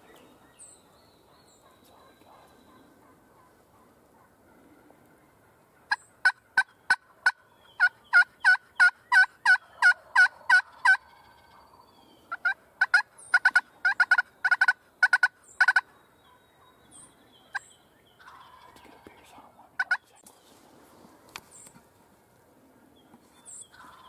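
Turkey yelping: two long runs of loud, evenly spaced yelps, about three a second. The first starts about six seconds in and lasts some five seconds, and the second follows after a short pause. A few single faint notes come later.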